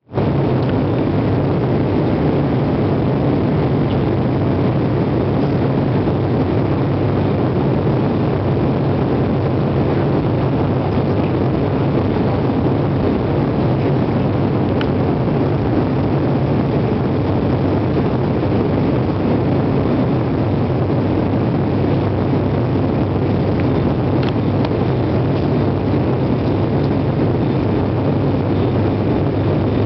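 Cabin noise of a turboprop airliner in flight: engines and propellers running with a steady low hum under an even rush of air.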